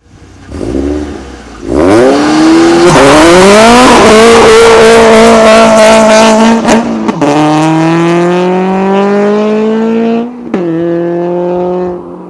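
2013 Scion FR-S flat-four engine through an ARK Performance GRiP exhaust with equal-length headers and overpipe, revved hard. The pitch climbs quickly and holds high for a few seconds, drops about seven seconds in, climbs steadily again, then drops once more near the end.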